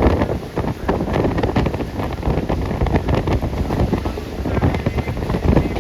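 Moving train rumbling, with many rapid irregular rattling knocks, while heavy wind buffets the microphone.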